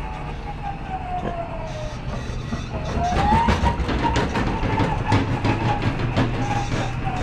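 Electric walkie pallet jack driving under load, its motor whining with a pitch that falls and then rises again as its speed changes. From about three seconds in, its wheels and load rattle and clack over the tile floor.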